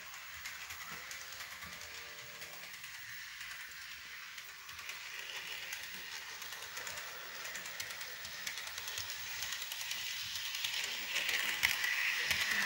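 HO scale model train running along its track: a light whir with fine, rapid clicking, growing louder as the train nears and passes close by near the end.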